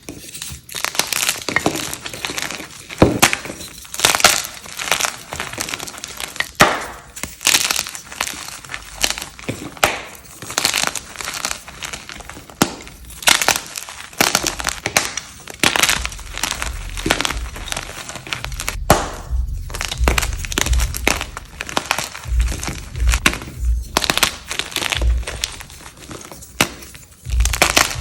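Crunchy dyed blocks being crushed and crumbled: a continuous run of sharp crunches and cracks, several a second, with crumbling between them. Low thumps join in the second half.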